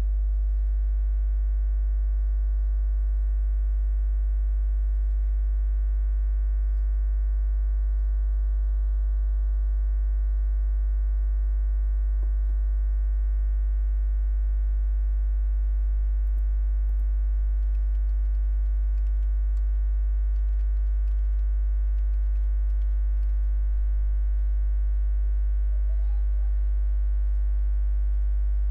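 Steady electrical mains hum: a deep, unchanging buzz with many higher overtones, with a few faint clicks now and then.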